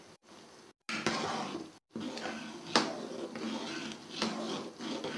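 A spoon stirring spiced chickpeas in a cooking pot, scraping and knocking against the pot, with a few sharp clinks. The sound is broken by two brief silent gaps about a second in and just under two seconds in.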